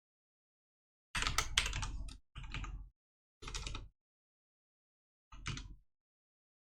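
Computer keyboard typing in four short bursts of key clatter, the longest about a second in.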